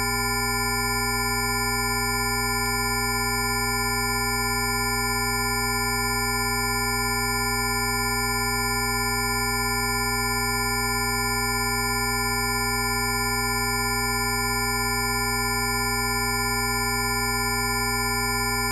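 A steady chord of pure electronic sine tones at many fixed pitches, from a low hum up to a high whistle, held unchanging: a Rife frequency tone track.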